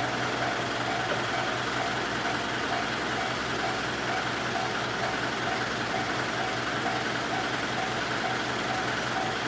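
Japanese railway crossing warning bell ringing repeatedly at an even pace, over a steady low hum.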